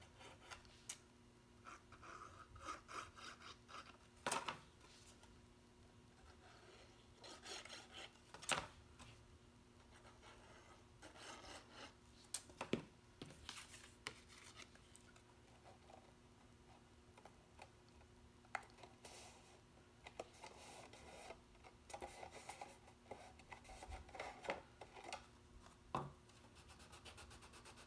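Faint rubbing and rustling of black cardstock as a small paper box is handled and pressed together to glue its bottom on, with a few sharp taps scattered through.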